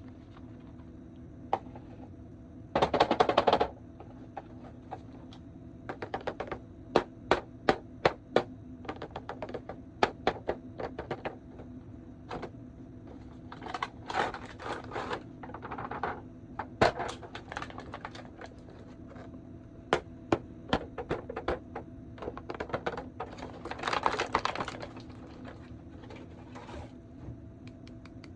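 Plastic action figures and their parts being handled: a long run of irregular sharp clicks and clacks, with three short rustling bursts.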